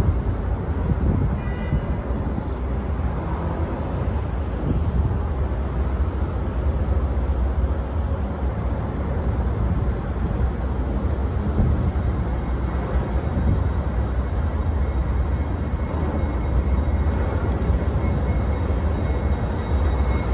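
Steady low rumble of wind on the microphone mixed with the distant sound of CSX freight train Y102's diesel locomotives slowly approaching. A faint, steady high tone joins about twelve seconds in.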